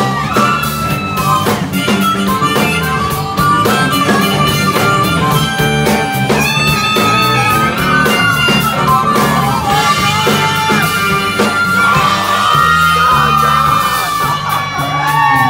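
Live band with a harmonica played into a vocal microphone, its notes bending up and down in pitch, over electric guitar, bass guitar and drum kit.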